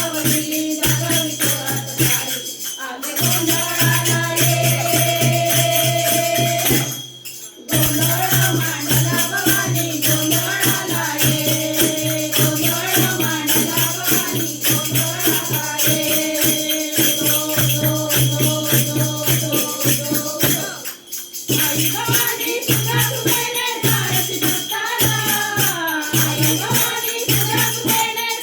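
Gondhal devotional song to the goddess Bhavani: voices singing over a steady rhythmic accompaniment of jingling percussion, with short breaks between phrases about three, seven and twenty-one seconds in.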